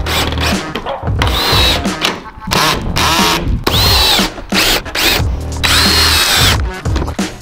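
DeWalt cordless drill driving screws through the flange of a new RV roof vent fan in several short runs, the motor whine rising and falling with each run.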